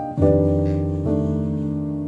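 Slow background piano music: a chord struck just after the start and another about a second in, each ringing on and fading.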